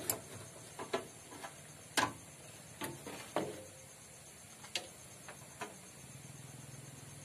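Irregular light clicks and knocks, the loudest about two seconds in, as the rear cover over a Bajaj RE auto-rickshaw's engine is handled and fitted into place.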